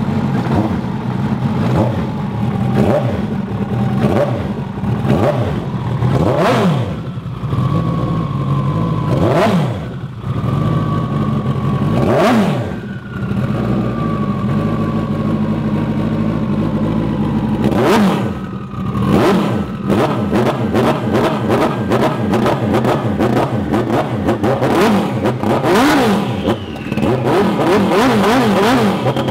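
Turbocharged Yamaha jet ski engine running out of the water, revved in repeated throttle blips that rise and fall in pitch, with sharp cracks at several of them. A high whine slowly falls in pitch through the middle, and the blips come quicker and closer together in the last third.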